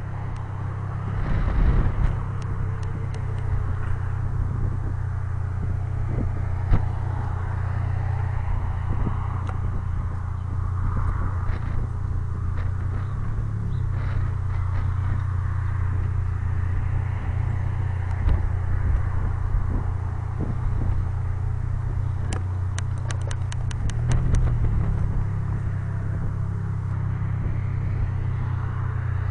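Car engine running steadily at low speed, a low drone, with road and wind noise swelling and fading over it. A quick run of clicks comes about three-quarters of the way through.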